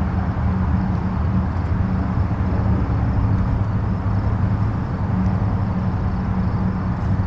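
Distant highway traffic: a steady, low rumble of tyres and engines blending into one continuous noise.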